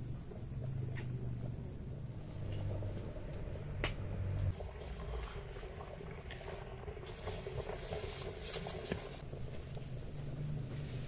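Wood fire crackling under a large pot of boiling stew, with a low rumble and a few sharp pops. Midway a plastic bag crinkles as it is squeezed over the pot.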